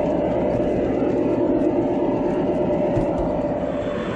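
G-scale model diesel train running on the track: a steady mechanical rumble of motors and wheels, mixed with the locomotive's onboard diesel-engine sound effects.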